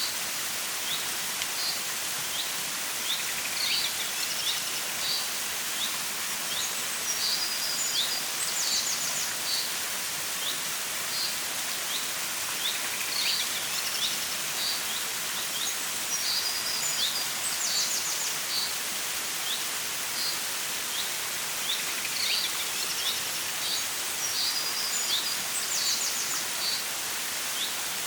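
Stream water flowing in a steady rush, with birds chirping over it. One bird repeats a short song phrase ending in a rapid trill about every four to five seconds, with single short chirps in between.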